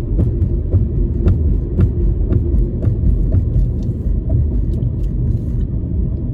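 Car driving on a highway, heard from inside: steady low road and engine rumble, with a faint regular tick about twice a second.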